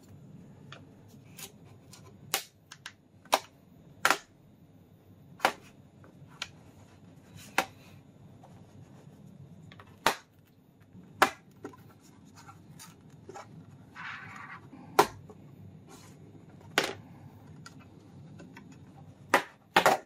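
The retaining clips of a Samsung Galaxy Book Ion laptop's bottom panel popping loose as it is pried off: a string of sharp, irregular clicks and snaps, with a brief scrape about fourteen seconds in.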